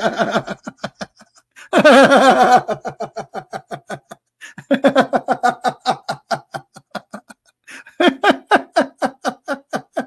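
A man laughing at length in runs of rapid 'ha-ha' pulses, about six a second, breaking off briefly twice.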